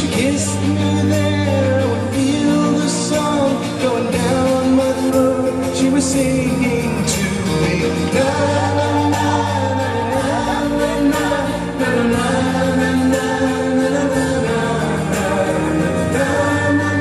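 Viennese waltz music with a singer, playing steadily for the dance.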